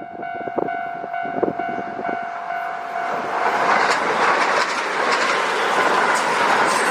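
A Kintetsu Nagoya Line electric train passing the level crossing. A steady pitched warning tone and a few sharp knocks come as it approaches. About three and a half seconds in, the train reaches the crossing and its loud rushing run-by covers everything else.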